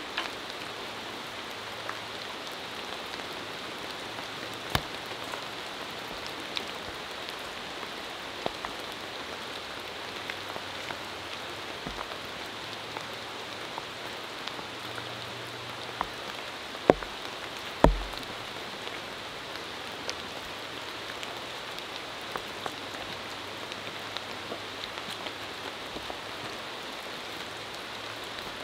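Steady rain falling on a camp tarp, a constant patter with scattered sharper drips. Two louder sharp taps come close together a little past the middle.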